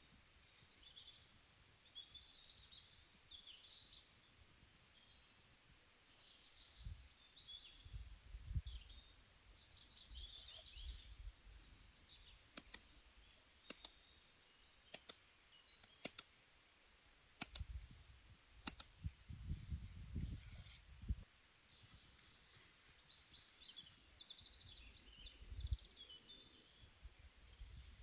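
Faint small-bird chirping and twittering. A scattering of sharp clicks falls through the middle, with a few low rumbles.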